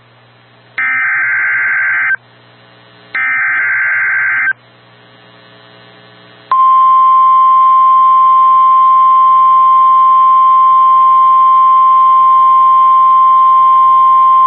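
NOAA Weather Radio Emergency Alert System activation. Two short bursts of warbling SAME header data tones, about a second each with a second's gap between, are followed about six and a half seconds in by the steady 1050 Hz warning alarm tone. The alarm tone heralds a newly issued severe thunderstorm warning.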